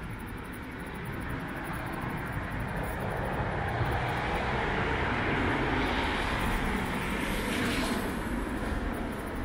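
Traffic noise: a vehicle passing on the street, its rumble and tyre hiss swelling over a few seconds and then fading.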